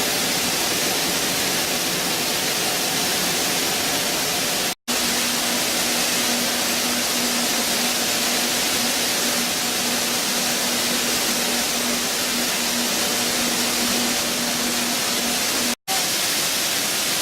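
Stone flour mill running: a steady rushing noise with no clear rhythm, which cuts out for an instant twice.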